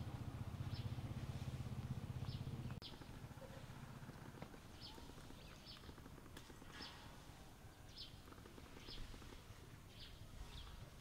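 A bird calling over and over with short, high, slightly falling chirps, roughly once a second. A low rumble underneath stops abruptly about three seconds in.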